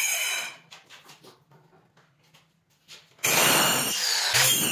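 Handheld electric circular saw cutting a laminated board along a guide strip: the saw's whine falls away as it stops in the first half second, there are a few seconds of quiet with light knocks, then the saw starts again abruptly about three seconds in and cuts with a steady high whine.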